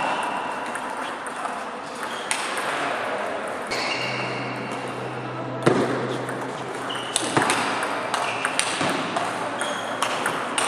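Table tennis rally: the ball clicking sharply off the bats and the table, a few scattered hits at first, then a quicker back-and-forth series in the second half.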